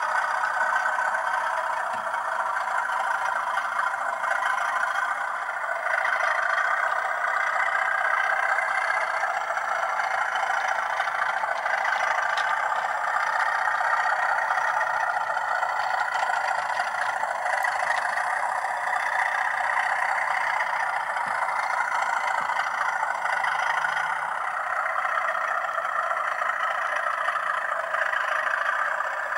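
Hornby TTS sound decoder in a model Class 37 locomotive playing a diesel engine sound, the English Electric twelve-cylinder of the Class 37, running steadily through the model's small speaker. It sounds thin, with almost no low end.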